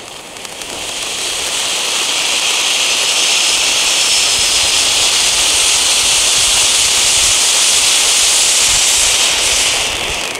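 Two Fire Swings children's (Category F1) fountain fireworks spraying sparks with a loud, steady hiss that swells over the first two seconds and dies away near the end.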